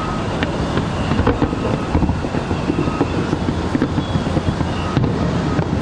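Aerial fireworks display heard as a steady low rumble, with a few faint cracks over it and wind buffeting the microphone.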